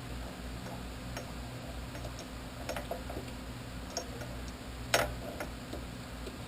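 Scattered light metal clicks and taps of small parts and tools being handled, with one sharper, louder clack about five seconds in, over a steady low hum.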